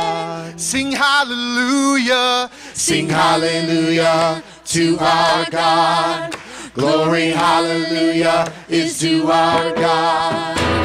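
A small group of voices singing a worship song unaccompanied, in harmony, in phrases with short breaks between them.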